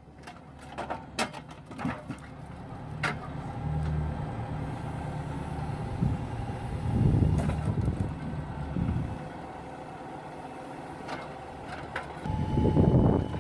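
MTZ 952.3 tractor's diesel engine running as it drives the Palms timber crane, with knocks and clacks of birch logs handled by the grapple. A run of sharp knocks comes in the first few seconds, and the sound grows louder twice, about halfway and near the end, as logs are set down on the stack.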